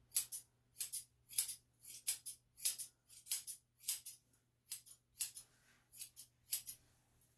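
Grooming shears snipping the hair on a dog's muzzle and face: about a dozen crisp snips, each a quick double click, at a steady pace of roughly one every half second.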